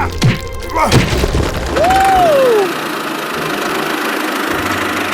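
Background music with cartoon sound effects: quick falling whistle-like glides in the first second, then a swooping tone that rises and falls about two seconds in, over a steady hiss.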